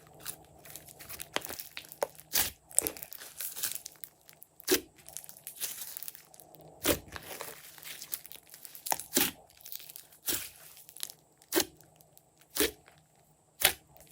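Hands kneading and stretching glossy slime: irregular sharp sticky pops and crackles as air pockets burst and the slime pulls apart, with softer squelching between them.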